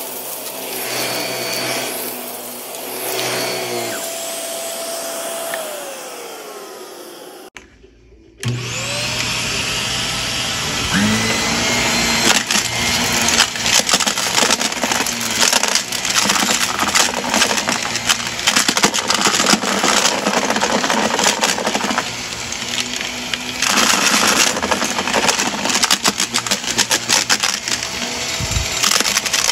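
Shark upright vacuum cleaner running over shag carpet, its sound fading with a falling tone and breaking off about eight seconds in. It then starts again with a rising whine and sucks up crunchy debris, with a dense rattling crackle of pieces going up the nozzle.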